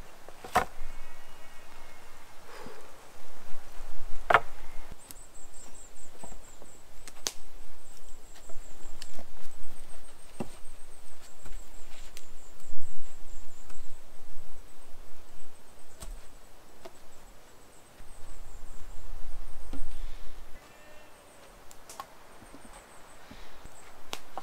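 Wood being chopped: single sharp knocks at irregular intervals, a few seconds apart.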